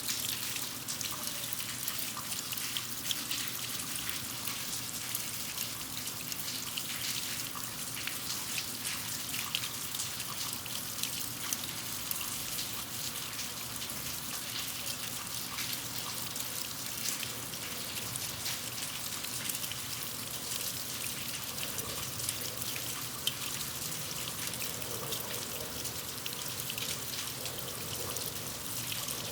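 Steady rain falling on concrete, a dense patter of individual drop ticks, with water running and trickling in a gutter.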